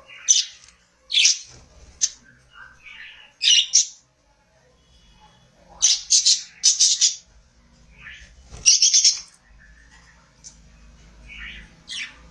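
Budgerigars calling: short, sharp, high-pitched chirps in irregular bursts, some single and some in quick runs of three or four, with quiet gaps between them.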